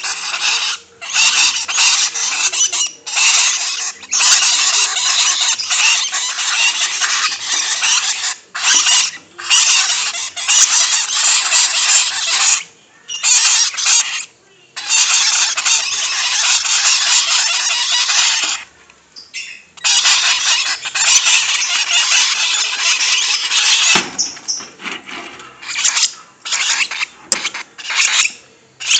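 Lovebird chicks giving raspy, squealing begging calls in long bouts broken by short pauses, turning into shorter bursts in the last few seconds.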